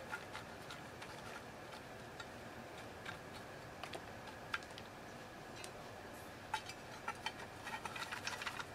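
Dry cherry wood chips handled and dropped into a metal smoker box: faint scattered clicks and rattles of wood on wood and metal, growing busier near the end as the box is packed and its slotted lid is set on.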